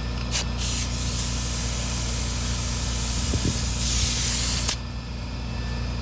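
Clear coat being sprayed onto a repaired wheel: two short hissing bursts, then one steady spray pass of about four seconds that cuts off sharply.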